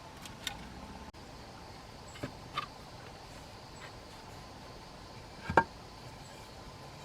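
A few short, sharp knocks and taps over a faint steady background, the loudest a single knock about five and a half seconds in.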